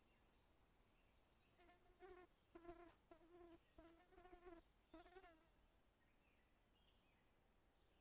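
Faint buzzing of a flying insect in several short bouts with a wavering pitch over about four seconds, starting a couple of seconds in. A thin, steady high whine sits under it throughout.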